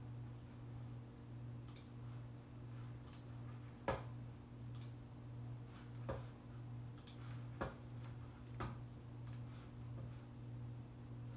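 Quiet, irregular clicks and taps over a steady low hum: a few light high-pitched ticks and four sharper taps, with no regular rhythm.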